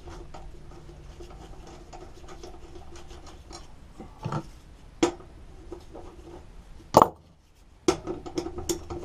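Light metallic clicks and knocks of a lawn mower blade and its bolt being handled and threaded on by hand under the mower deck, with a sharper knock about seven seconds in as the loudest sound.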